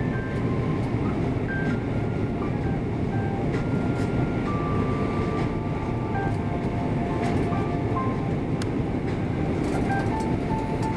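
Steady roar inside the cabin of an Airbus A340-600 on descent: engine and airflow noise from the Rolls-Royce Trent 500 engines, heard from a window seat beside the wing.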